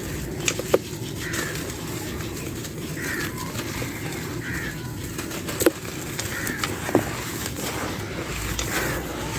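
Dry clay being crumbled by hand, a steady crunching with a few sharp snaps: two near the start and two past the middle. Birds chirp faintly now and then.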